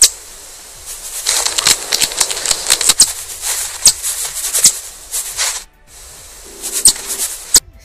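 Close, scratchy rustling dense with sharp clicks and crackles, heaviest in the middle, with a few loud single clicks near the start and end.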